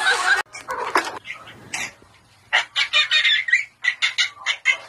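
Short, rapid animal calls in two runs of about a second each, starting about two and a half seconds in.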